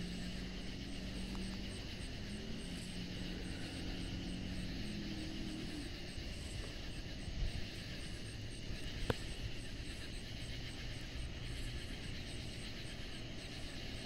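Steady chorus of cicadas, a high buzz with a fast even pulse, over a low rumble. A low droning hum fades out about six seconds in, and one sharp click comes about nine seconds in.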